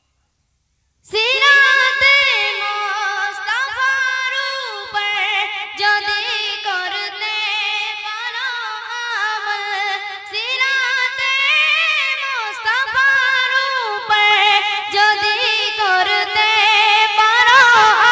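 A boy singing a Bengali Islamic gojol without instruments, in long drawn-out phrases with a high, wavering, ornamented pitch; the singing begins about a second in, after a moment of silence.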